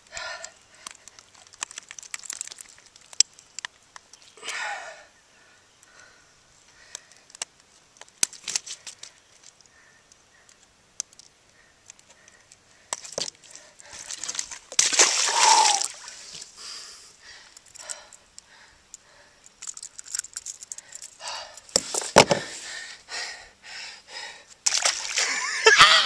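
Handling sounds of largemouth bass being unhooked from a treble-hooked hula popper in a small boat: scattered clicks and knocks with some splashing of water. Louder wordless vocal outbursts come about halfway through and again at the end.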